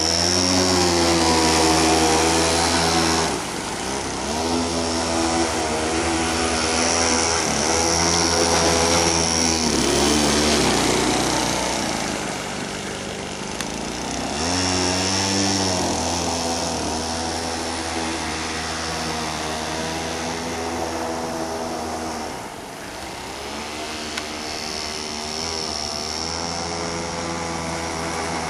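Homemade boat's 25cc two-stroke string-trimmer engine running at high revs, its pitch and loudness rising and falling as the boat runs across the water, dipping a few times. The builder feels the engine still needs more RPM.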